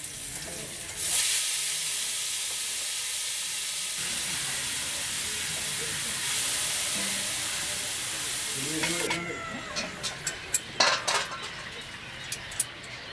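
Shredded cabbage hits hot oil in a black iron wok and sizzles loudly, starting suddenly about a second in. Near the end the sizzle dies down and a few sharp clinks of stirring in the pan follow.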